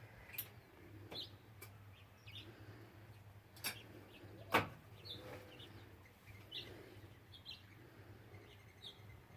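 Wild birds chirping faintly, short scattered high chirps, with a few sharp clicks and a low steady hum underneath.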